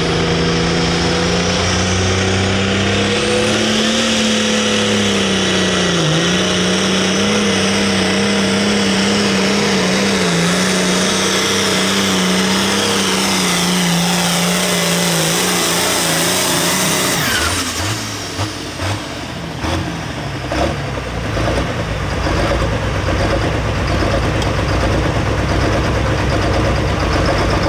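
International 1066 hot farm tractor's turbocharged diesel engine at full throttle under load pulling the sled, its pitch wavering, with a high turbo whine above it. About 17 s in the throttle drops off: the engine note cuts away and the whine falls, followed by clunks and a low rumbling idle.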